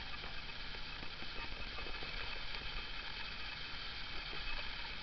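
Fialka-2 radio-tape recorder's loudspeaker giving a steady hiss with faint whistles and low mains hum: the set's background noise between stations right after it is switched on following repair.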